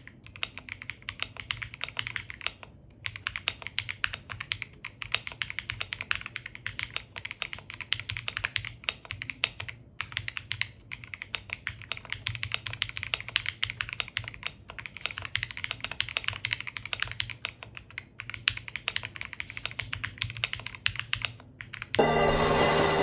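Fast, continuous typing on a Kiiboom Moonshadow 81 mechanical keyboard with Leobog IceSoul switches: a dense run of keystroke clacks with a few brief pauses. Music comes in about a second before the end.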